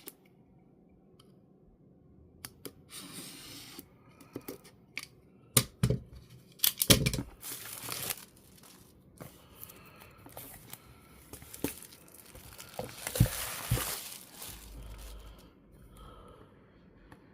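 Product box packaging being torn open by hand, with crinkling and the clicks and knocks of handling the box. It comes in bursts, loudest about a third of the way in and again near the end.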